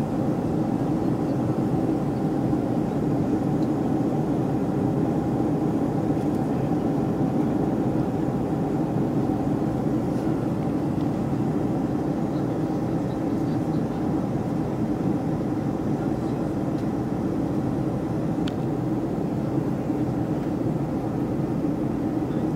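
Steady passenger-jet cabin noise as the airliner descends toward landing: engines and airflow heard through the fuselage as an even, low drone that does not change.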